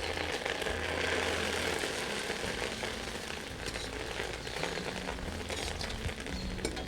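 Food sizzling as it fries in hot oil in a pan, loudest at first and then settling to a steady sizzle with scattered small pops.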